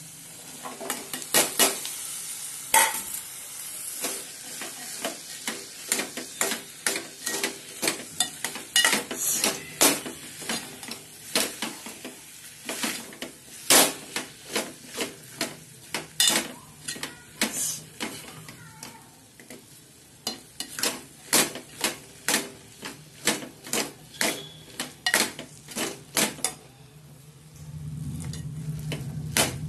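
Metal ladle stirring boiled potatoes and kidney beans into frying masala in a metal pot: sharp clinks and scrapes of ladle on pot, about one or two a second, over a soft sizzle.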